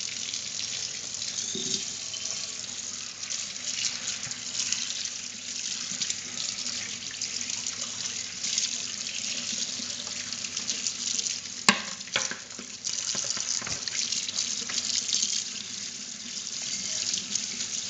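Kitchen faucet running steadily into a sink while a steel frying pan is washed and scrubbed with a sponge under the stream, rinsing off the oily anti-rust coating the pan was shipped in. A single sharp knock about two-thirds of the way through.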